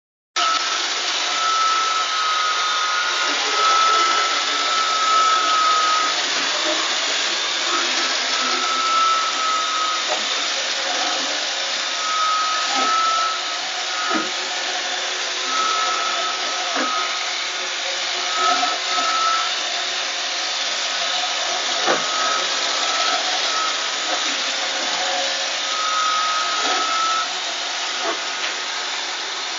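iRobot Roomba 577 robot vacuum running: a steady whirring hiss with a high whine that comes and goes every second or two, and a few sharp knocks.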